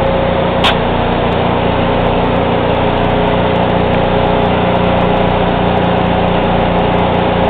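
Small engine of a portable engine-driven welding machine running at a steady drone. There is one sharp click about three-quarters of a second in.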